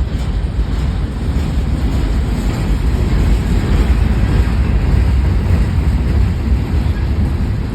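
Freight train cars rolling past close by: a steady low rumble that swells a little in the middle, with wind noise on the microphone.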